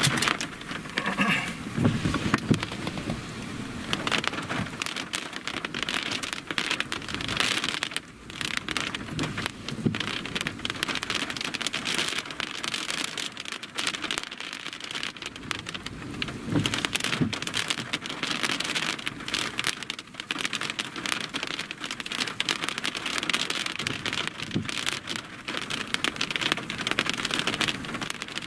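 Rain falling on a stopped vehicle's roof and windshield, heard from inside the vehicle as a dense, irregular patter of drop impacts.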